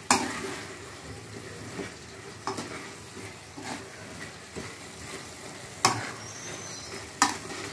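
Metal spoon stirring a spinach, fenugreek and tomato curry in a metal kadai, scraping and knocking against the pan over a steady sizzle of the simmering greens. A few sharp knocks of spoon on pan, the two loudest near the end.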